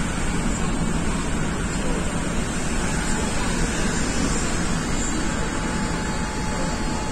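MTR Tung Chung line K-Train running at speed between stations, heard from inside the car: a steady rumble of wheels on rail and running noise, with a faint steady whine coming in about three seconds in.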